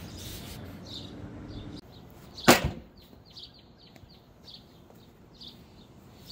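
A cardboard shipping box set down on a glass tabletop with a single sharp knock about two and a half seconds in. Small birds chirp faintly in the background.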